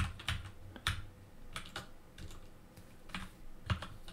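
Typing on a computer keyboard: separate keystroke clicks at an uneven pace, with short gaps between them.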